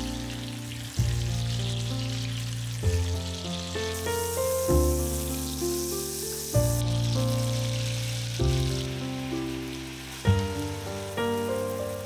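Butter and food sizzling as they fry in a pan, with a louder patch of sizzling from about four to nearly seven seconds in. Under it plays piano music whose chords change about every two seconds.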